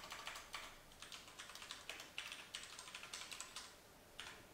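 Faint computer keyboard typing: quick runs of key clicks, with a brief pause near the end.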